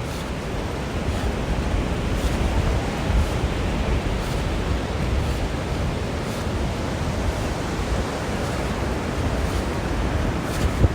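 Steady rushing noise of ocean surf and wind buffeting the microphone, with faint ticks about once a second.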